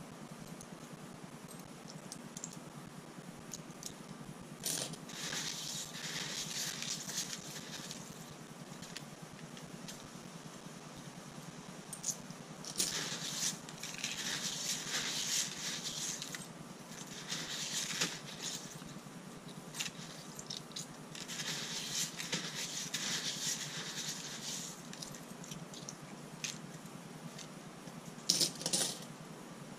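Steel pin tumbling media and coins rustling and clinking as hands stir through a bowl of the pins to pick out the coins. It comes in bursts of a few seconds, with a couple of sharper clicks near the end.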